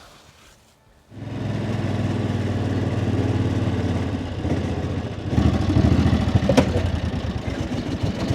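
A vehicle engine running steadily. It starts just after a second in and gets louder about five seconds in, with a short click near the end.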